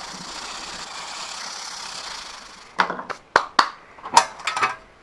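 100-grit sandpaper rubbed by hand over hardened steel-epoxy filler on a car's steel trunk lid: a steady, scratchy rasp for about two and a half seconds. Then a run of sharp clicks and knocks as a metal locker is handled.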